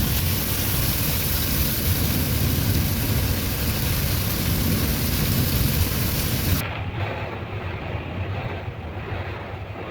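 Storm noise: a steady rush of strong wind and rain with heavy wind rumble on the microphone. About six and a half seconds in it changes abruptly to a duller, quieter rush.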